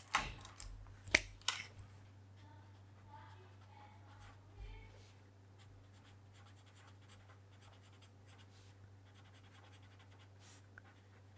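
Felt-tip pen writing on paper: faint scratchy strokes as letters are drawn out. A few sharp clicks and knocks come in the first second and a half.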